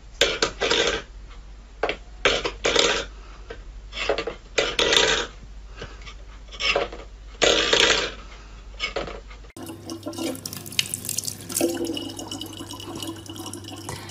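A stainless steel pet bowl clattering and scraping on a wooden floor in a string of short, irregular bursts. About ten seconds in it gives way to a tap running steadily into a plastic bottle.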